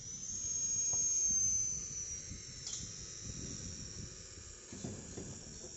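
High-pitched power-tool motor whine that sags in pitch over the first two seconds, then starts again at a steady pitch about three seconds in.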